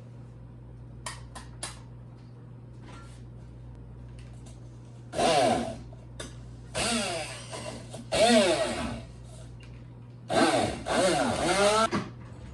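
Immersion blender pulsing in four short bursts as it purées a cut-up apple in a cup, its motor pitch dipping and rising within each burst as the blades meet the apple pieces. A few light clicks come first.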